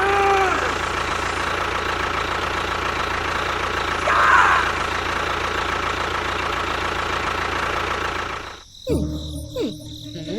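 A small motor running steadily, an engine-like mechanical drone that cuts off abruptly about eight and a half seconds in; after the cut-off come a few short gliding voice-like sounds.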